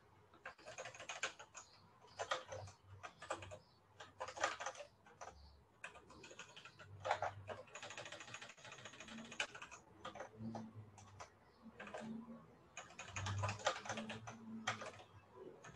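Typing on a computer keyboard: quiet runs of quick keystrokes broken by short pauses.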